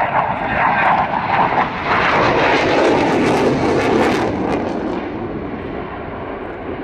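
F-16 fighter's single Pratt & Whitney F100 jet engine in afterburner as the jet pulls up into a climb: loud, rushing jet noise with a crackle through the middle. About five seconds in, the hiss turns duller and a little quieter.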